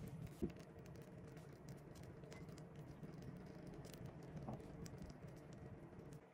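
Faint handling sounds of a piping bag pressing buttercream onto a cake, with a few light ticks, one about half a second in and another about four and a half seconds in, over a low steady room hum.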